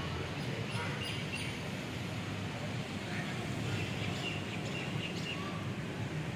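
Steady background noise with faint, scattered bird chirps every second or so.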